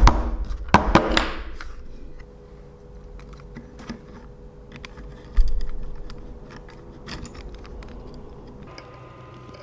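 Small metallic clicks and taps as steel tweezers handle a tiny brass threaded insert against a soldering iron tip and a 3D-printed plastic gear, thickest in the first second and a half, with one dull thump about five and a half seconds in.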